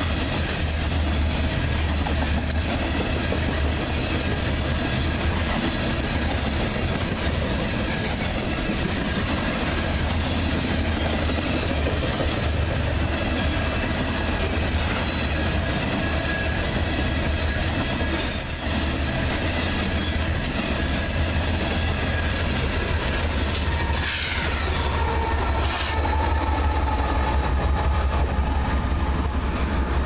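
Coal train hopper cars rolling past with a steady deep rumble and clickety-clack of wheels over rail joints, under thin high-pitched wheel squeal. A squeal slides down in pitch about three-quarters of the way through.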